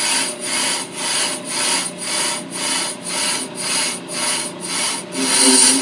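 Ammco brake lathe's cutting bit scraping against a spinning brake drum as the bit is fed into the drum. The rasping swells and fades about twice a second, with a louder scrape near the end.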